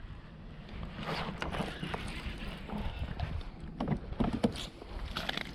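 Wind rumbling on the microphone aboard a fishing kayak, with irregular knocks and clatter of gear being handled from about a second in.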